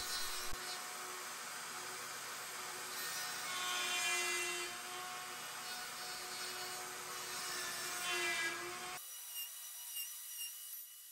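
Large router cutting half-blind dovetails in a dovetail jig: a steady motor whine with cutting noise that swells as the bit moves through the wood, thinning out about nine seconds in and fading away.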